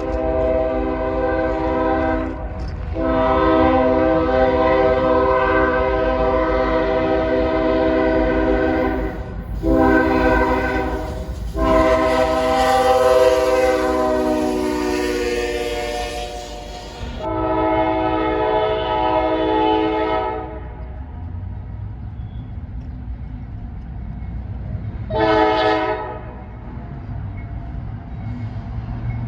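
Locomotive air horn sounding several long blasts and one shorter one, its chord sagging in pitch during the third blast, then a short toot near the end, over the steady rumble of the train.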